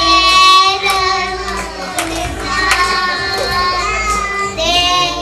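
A group of young children singing together into microphones, accompanied by an electronic keyboard.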